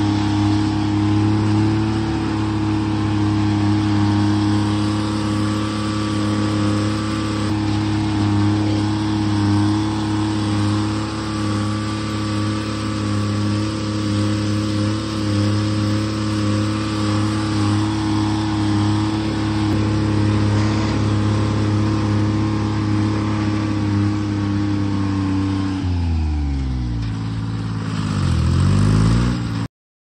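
Timberjack 230 skidder's Detroit Diesel two-stroke engine running steadily as the machine drives through snow. About 26 seconds in, the engine speed falls, then dips and rises again, and the sound cuts off abruptly near the end.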